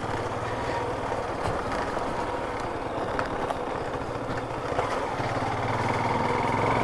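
Yamaha FZ motorcycle engine running as the bike is ridden, the engine note growing a little louder about five seconds in.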